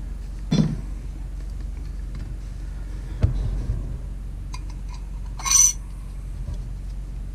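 Metal wear plate and raw water pump housing knocking and clinking together as the plate is test-fitted by hand: a knock about three seconds in, then a bright metallic clink with a short ring past five seconds, over a steady low hum.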